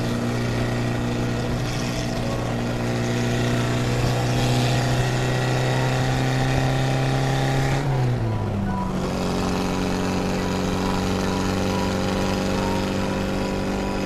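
Classic Mini's four-cylinder A-series engine running steadily at highway speed, with road and wind noise. About eight seconds in, the engine note dips briefly and settles at a lower pitch as the car shifts up a gear.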